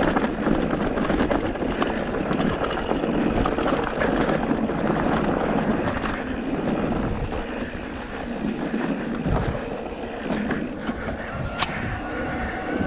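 Rough rolling rumble and rattle of a vehicle being ridden along a dirt forest trail, with a single sharp click near the end.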